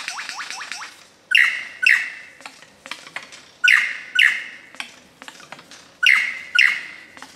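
Male superb lyrebird singing in display: a quick run of rising whistled notes, then three pairs of loud ringing calls about two and a half seconds apart, with sharp clicks in between, part of his mimicry-rich repertoire.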